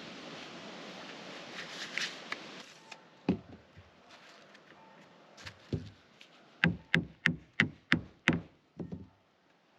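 A steady rushing hiss cuts off abruptly about three seconds in. Scattered hard knocks follow, then a quick run of six sharp knocks at about three a second, from hard objects struck during roof-tiling work.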